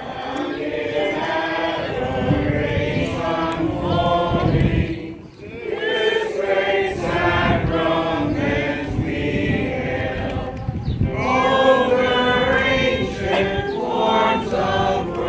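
A congregation singing a slow hymn together, with a short break for breath about five seconds in.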